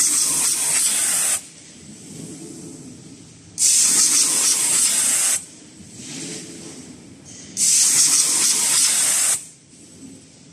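CNC V-grooving machine's cutter scraping a V-groove along a sheet-metal blank in repeated passes: three loud hissing cuts of under two seconds each, about four seconds apart, with quieter machine noise between as the carriage returns.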